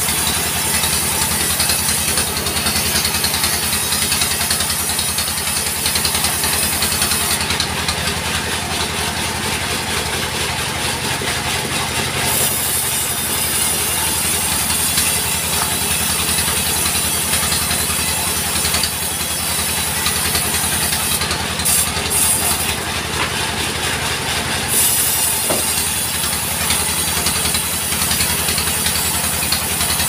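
Portable sawmill running steadily, its engine going while the blade cuts through a log pushed through by hand. A high sawing hiss rides over the engine and thins out twice for a few seconds.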